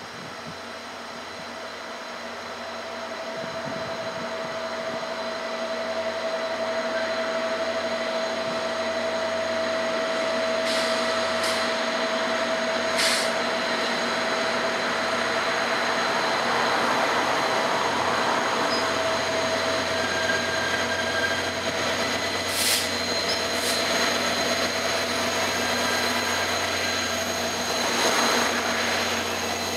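Two VIA Rail EMD F40PH-2 diesel locomotives hauling a passenger train, approaching and passing close by. Their engine sound grows louder over the first several seconds and then holds steady as they come near, with a few brief sharp clicks along the way.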